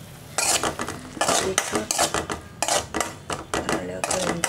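Metal spoon stirring wet grated beetroot in a steel pan, scraping against the pan bottom in quick irregular strokes that start about half a second in.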